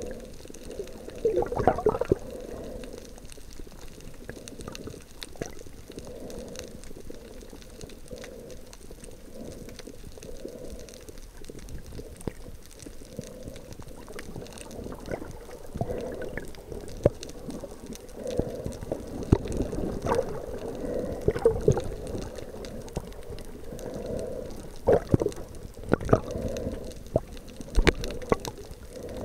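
Muffled underwater water noise with soft swishing swells and gurgles, heard with the microphone under the water. Sharp knocks come now and then, most of them in the second half.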